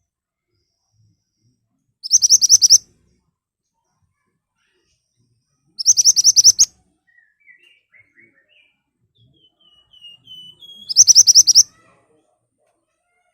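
Pied bushchat (mantenan) singing in sharp, rapid bursts. There are three loud bursts of quick high notes, each under a second long and about four to five seconds apart, with soft twittering notes between the second and third.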